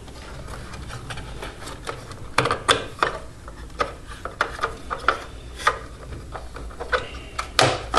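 Plastic clicks and creaks as the snap-fit top cover of a Krups Nespresso coffee machine is pried off by hand, with scattered sharp clicks starting about two and a half seconds in.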